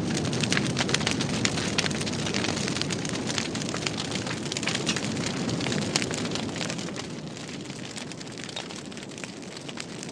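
Large fire burning with a low roar of flames and many sharp crackles and pops throughout, the roar easing a little about two-thirds of the way in.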